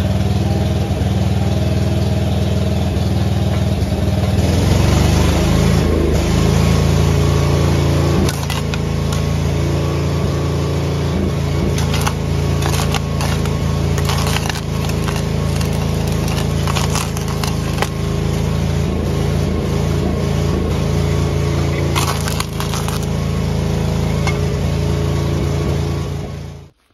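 An engine-driven arc welder runs steadily throughout. From about four seconds in, a stick-welding arc crackles and spits as the rod is struck over a cast iron pan full of liquid oxygen, with sharp pops in clusters. The arcs burn without setting the pan on fire.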